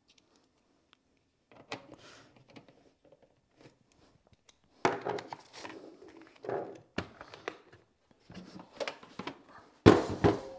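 Clicks, knocks and handling noises of an Instant Pot's parts being fitted and screwed back together, with one loud thunk near the end.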